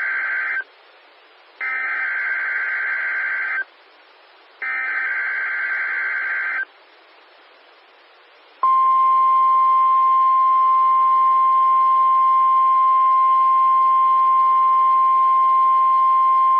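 NOAA Weather Radio weekly test received over a radio: the end of one burst of the screechy SAME digital header data, then two more bursts of about two seconds each, a second apart. After a two-second pause, the steady single-pitch 1050 Hz Warning Alarm Tone starts about eight and a half seconds in and holds, the tone that switches on weather alert receivers.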